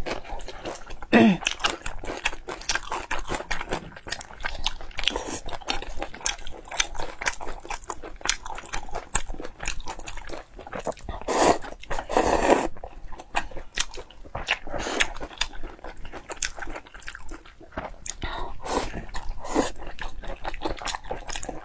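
Close-miked eating: wet chewing and lip-smacking from two people, a dense run of small clicks and squelches. About eleven seconds in come two louder slurps as noodles are sucked up.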